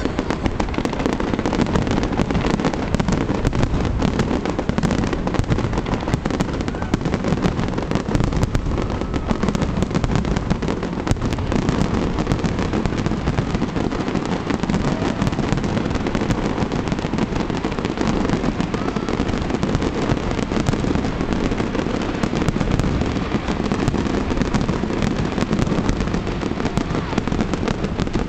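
Aerial fireworks display: a dense, unbroken barrage of shell bursts and crackling, the bangs running together without a pause.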